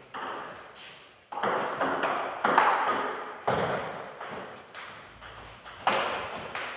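Table tennis rally: the ball clicking sharply off bats and table in quick, slightly uneven succession, about two hits a second, each hit echoing briefly in a large hall.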